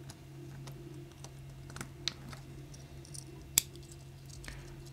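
Small clicks and taps of a plastic connector housing being handled and fitted by hand, with one sharper click about three and a half seconds in, over a steady low hum.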